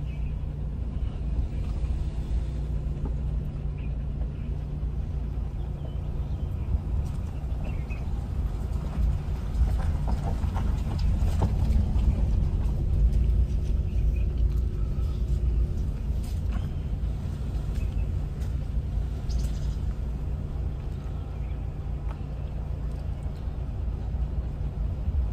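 Car interior noise while driving slowly on a narrow, rough road: a steady low engine and tyre rumble with a constant hum.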